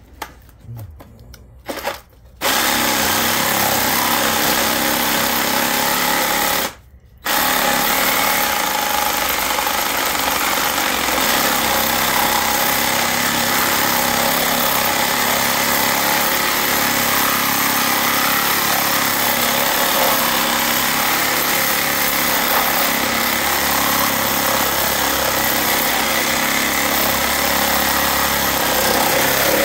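Reciprocating saw cutting into a scrap transformer. It starts about two and a half seconds in, stops for about half a second near seven seconds, then runs on steadily.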